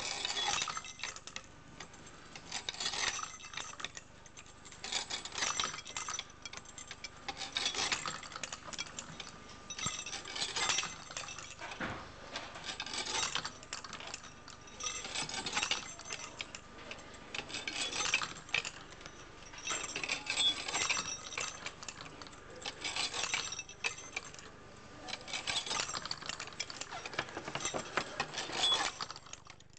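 A hand-made kinetic sculpture with a turning bent-wire crankshaft: small jingle bells jingling and metal and wooden parts clinking and rubbing as it turns. The clatter comes in rhythmic bursts about every two and a half seconds.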